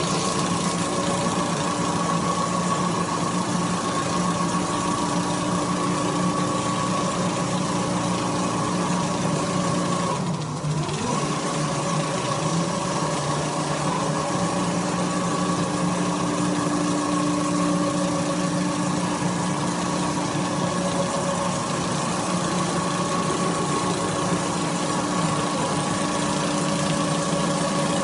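Industrial quilting machine running with a steady hum. About ten seconds in it briefly slows and picks up speed again.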